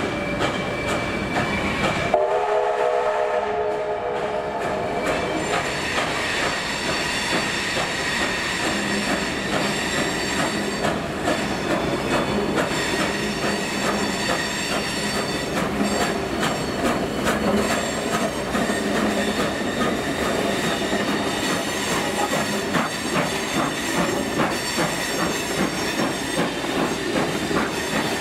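A train running past with a steady clatter of wheels clicking over rail joints. About two seconds in, a horn sounds a held chord for roughly four seconds.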